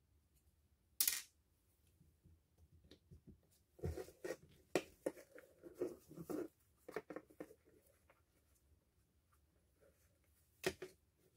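Parts of a Bosch GSR 14.4 cordless drill being handled and worked apart during disassembly. A sharp click comes about a second in, then a run of small knocks and clicks, and another sharp click near the end.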